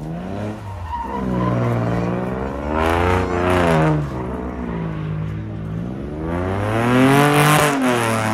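A car doing donuts: its engine revs rise and fall in repeated waves as the rear tyres spin and squeal on the asphalt. The loudest tyre screeching swells up about three seconds in and again near the end.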